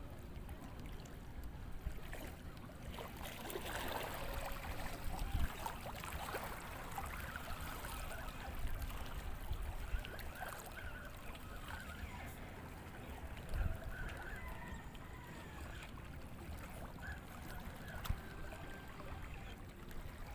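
Wind on the microphone and lapping water, with faint distant calls.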